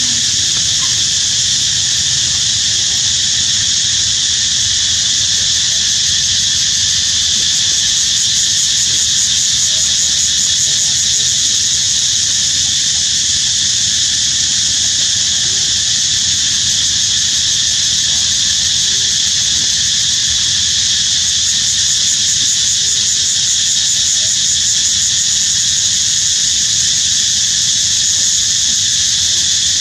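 A steady, loud chorus of insects: an unbroken high-pitched drone that doesn't vary.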